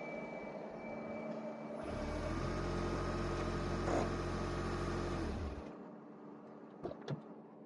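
A vehicle's engine running steadily for a few seconds and then stopping, followed by two short clicks near the end.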